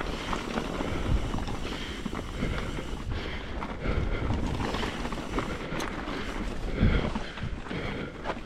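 Wind buffeting the camera microphone while a mountain bike rolls over rough, rocky trail: a steady low rumble with scattered knocks and rattles from the tyres and bike.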